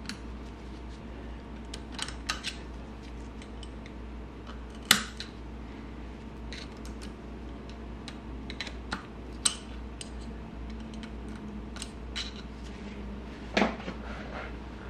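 Scattered small metallic clicks and taps as the retaining clip and fork parts are handled at the top of a motorcycle fork's outer tube. The sharpest tap comes about five seconds in and another near the end, over a low steady hum.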